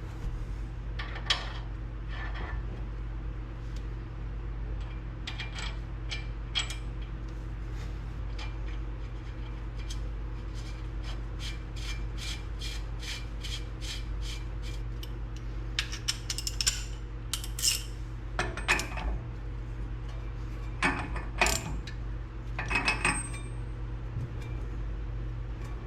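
Metal parts and hand tools clinking and knocking during car suspension and brake reassembly. A run of even clicks in the middle, about three a second, is like a ratchet wrench being worked. There are louder clusters of clatter near the end, all over a steady low hum.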